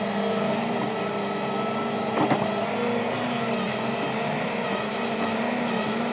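Hitachi Zaxis 396LC excavator's diesel engine running steadily, with a short clank a little over two seconds in.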